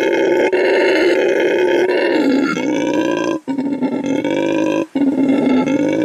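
A loud, drawn-out animal call held at a steady pitch, broken by two brief gaps about three and a half and five seconds in.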